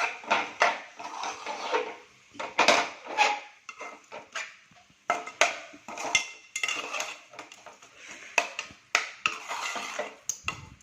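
A spoon scraping and clinking against a cooking pan in irregular strokes, with short pauses, as spice-coated masala paste is stirred and sautéed.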